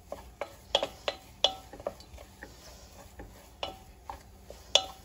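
Wooden spoon stirring thick choux paste in a stainless steel saucepan, with irregular knocks of the spoon against the pan, some ringing briefly. The loudest knock comes near the end. The paste is being dried out over the heat until a film forms on the pan's bottom.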